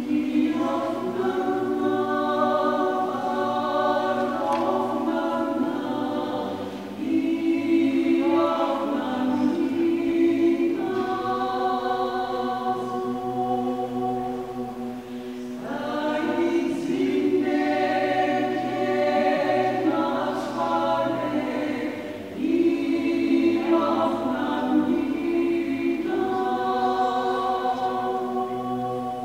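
Small mixed choir of men's and women's voices singing Georgian polyphony a cappella, holding chords in close harmony. The singing comes in phrases of about seven seconds with brief breaks between them.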